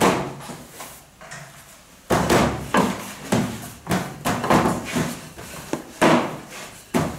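Wooden rolling pin worked back and forth over dough on a stainless steel table, giving a rhythmic knock and rumble with each stroke, about two a second, starting about two seconds in.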